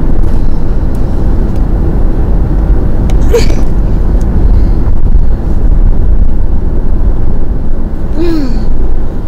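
Steady low rumble of car cabin noise inside a stopped car. A toddler makes two short vocal sounds, about three seconds and eight seconds in.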